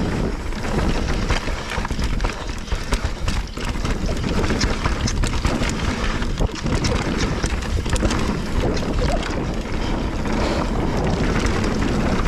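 Wind rushing over the microphone as a Nukeproof Giga mountain bike descends a dirt trail, its tyres rolling and the bike rattling and clicking over bumps throughout.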